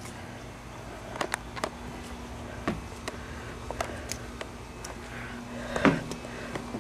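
Irregular light knocks and clicks as a handheld camcorder is moved around on a wooden porch, the loudest about six seconds in, over a low steady hum.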